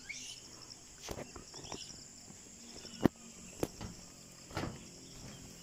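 Footsteps knocking on the steel deck plates of a suspension footbridge, a few irregular thuds with the loudest about three seconds in, over steady insect chirping.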